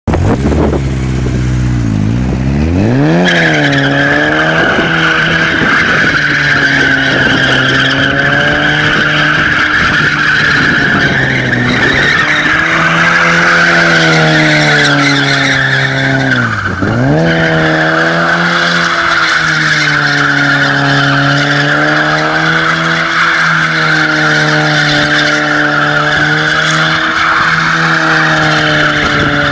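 Ford Sierra 2.0 doing donuts: the engine is held at high revs that swing up and down, and from a few seconds in the rear tyres squeal steadily as the car slides round. About halfway through the revs dip sharply and climb again.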